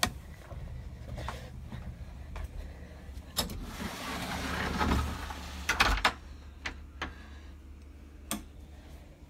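Footsteps climbing stairs with scattered knocks and thuds, the loudest pair just before the middle, and a rush of noise that builds for a second or so just before them, over a low steady hum.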